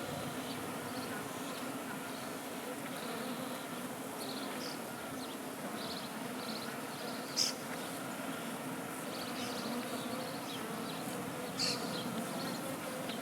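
Honey bees buzzing, a steady hum of many bees together, with scattered faint high chirps. Two brief sharp sounds stand out, about seven and eleven and a half seconds in.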